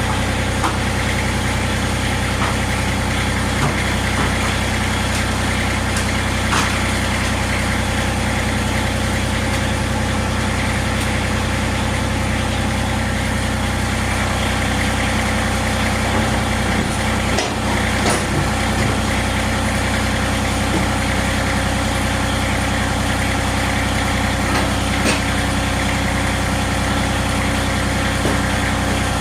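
Tractor engine idling steadily, with a few short sharp knocks over it.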